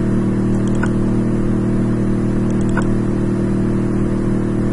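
Steady low electrical hum of background noise on the recording microphone, with faint mouse clicks about a second in and again near three seconds in.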